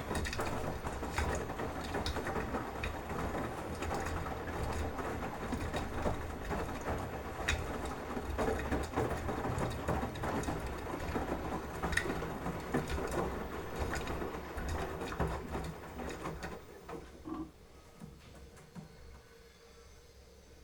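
Beko washing machine running, a steady low hum with a dense mechanical rattle and clicking. It winds down about three quarters of the way through and goes faint.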